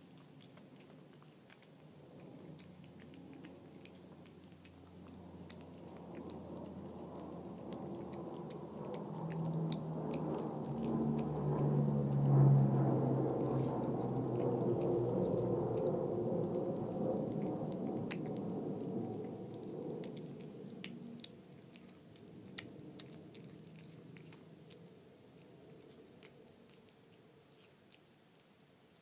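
A cat chewing and lapping wet flaked tuna, with quick small wet clicks from the mouth and tongue. In the middle a louder low droning sound of shifting pitch swells up and fades away.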